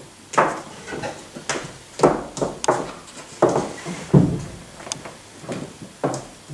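A run of irregular knocks and thumps on a stage floor, about a dozen in a few seconds, as a dark object is handled and moved, along with footsteps.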